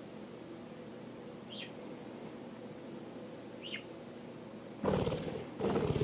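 Two short budgerigar chirps about two seconds apart, then near the end two loud bursts of rapid wing fluttering as the budgies take off.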